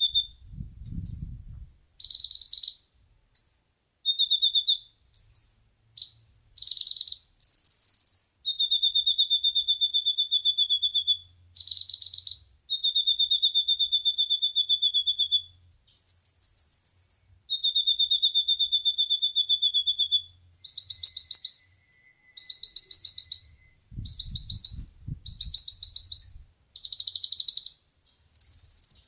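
Song of a kolibri ninja, a sunbird: long, steady, high thin whistles alternating with rapid buzzy trills, phrase after phrase with short pauses between. The trills come faster and more often in the second half.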